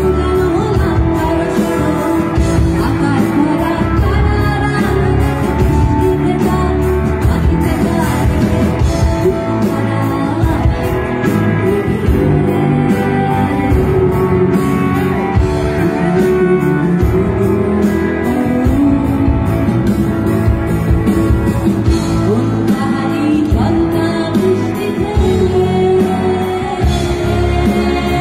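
Live song performance: a singer's voice over instrumental accompaniment, continuous and steady in level.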